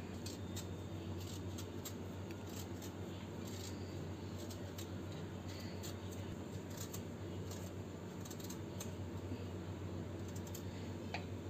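Small kitchen knife peeling the skin off a raw green mango: repeated short scraping strokes as the blade shaves through the firm peel, over a steady low hum.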